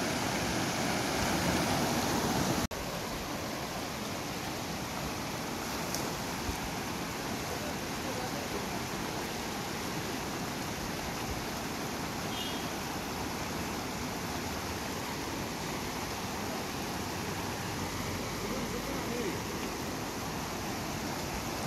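A shallow mountain river rushing over rocks and through rapids, a steady water rush. It drops abruptly to a slightly lower level about three seconds in.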